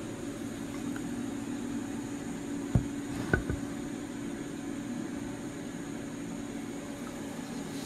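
Steady low mechanical hum with two sharp knocks about half a second apart near the middle.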